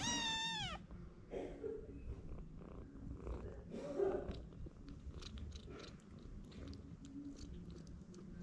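Kitten giving one loud, falling meow, then suckling at a baby bottle's rubber nipple with many small wet clicks and smacks.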